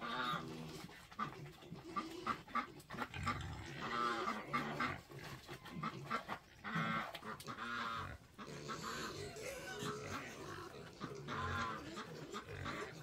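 Farm animals calling: short pitched cries about every three to four seconds, with lower calls in between.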